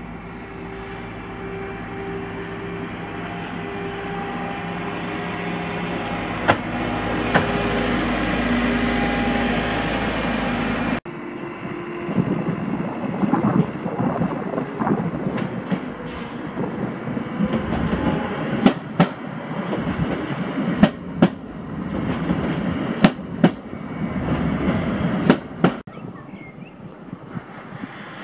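Trains moving through a station: a steady machine drone with a few held tones, growing louder for about ten seconds, then, after an abrupt cut, a slow train rolling past with its wheels clacking over rail joints in sharp pairs of clicks every couple of seconds.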